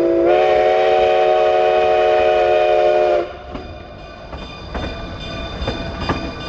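Steam locomotive's chime whistle sounding one long blast of several tones at once, stepping slightly up in pitch as it opens fully and cutting off about three seconds in. Quieter train running noise with a few scattered knocks follows.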